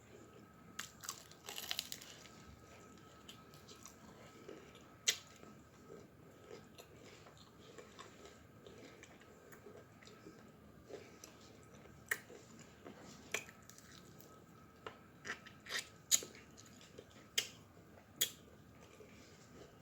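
Close-miked eating of sauced chicken wings: scattered biting and chewing with sharp, wet mouth clicks and smacks, and a short crunchy bite near the start.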